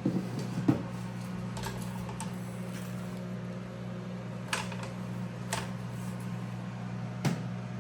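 Food dehydrator's fan running with a steady hum, with a few light clicks and taps scattered through it as its trays are handled.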